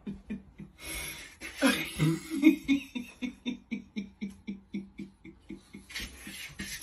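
A person laughing hard in a long, rhythmic run of ha-ha pulses, about five a second, starting about a second and a half in.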